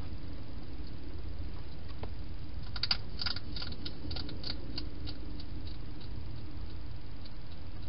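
Wild hedgehog eating from a bowl inside a plastic feeding box: a quick run of crisp clicks and crunches about three seconds in, thinning to scattered ticks.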